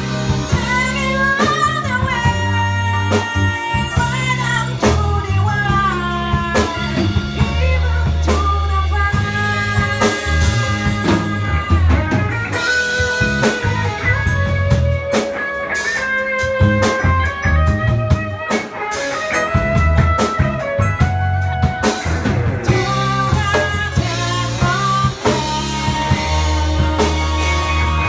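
A live band playing a blues-rock song: a singer over guitar, drum kit and held low bass notes.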